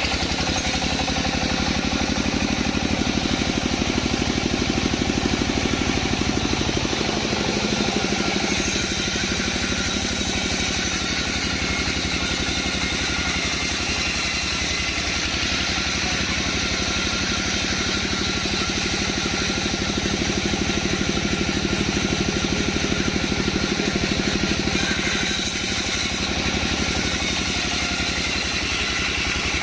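Sawmill machinery running steadily: a constant engine drone with a continuous rushing, whining noise over it. The level and character barely change.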